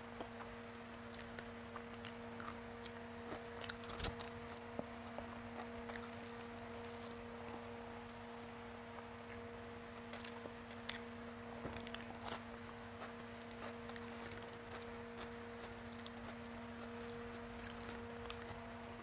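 Close-miked soft eating sounds: chewing, small wet mouth clicks, and fingers squishing rice mixed with mashed elephant foot yam, with a few sharper clicks. A steady low hum runs underneath.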